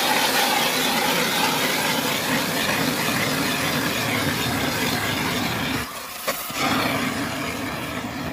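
Battery-powered electric ice auger drilling through lake ice: a steady motor whir with the grind of the blade cutting ice. It drops off briefly about six seconds in, then runs again more quietly.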